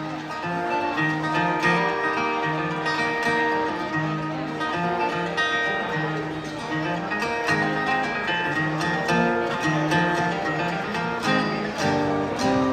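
Acoustic guitar picking a quick bluegrass instrumental passage, the closing break of the song after its last sung line.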